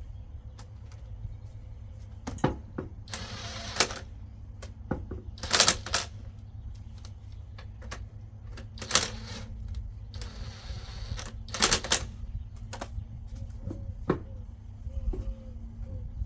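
Metal clinks and clicks of tools and lug nuts during a car wheel change, with five short harsh rattling bursts of noise, each a second or less, over a steady low rumble.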